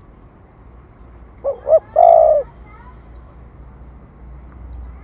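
A spotted dove cooing once: two short notes followed by one longer, louder note, about a second and a half in.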